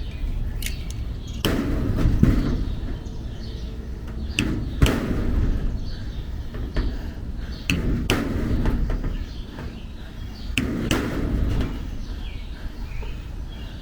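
Scattered knocks and clicks, about one every second or two, as the hasp hardware and tools are handled against a metal shed door, over a low rumble of wind on the microphone.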